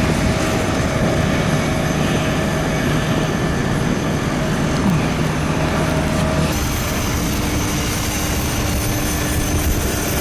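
Steady rush and hum of an Airbus A350-900 cockpit on the ground, with a few steady tones. About six and a half seconds in, the tones change and a thin high whine comes in.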